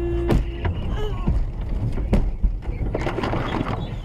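A car horn sounds for about a second at the start, over the rumble of the car. It is followed by several knocks and thumps as the car is forced off the road over the kerb, and a rush of noise near the end as it runs along the grass verge.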